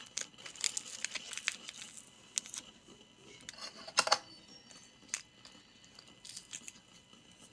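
A metal spoon stirring powdered coffee and mushroom mix into a little water in a glass: irregular scraping with small clicks against the glass, and one sharper clink about four seconds in.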